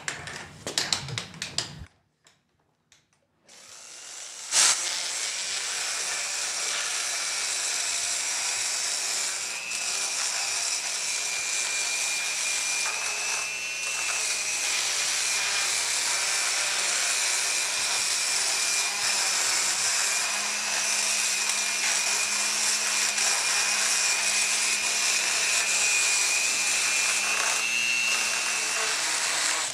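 Dremel-driven motorized equine dental float grinding down the teeth of a horse skull: after a few clicks, the motor starts about four and a half seconds in and runs steadily with a high whine over a grinding hiss. It is taking off the sharp enamel points on the molars.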